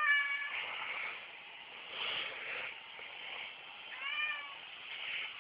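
Domestic cat meowing twice: a rising call right at the start and a shorter one about four seconds in.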